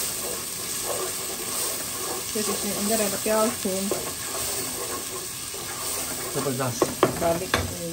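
Ginger-garlic paste sizzling in hot oil in a non-stick pot, stirred and scraped with a wooden spatula. A few short clicks come near the end.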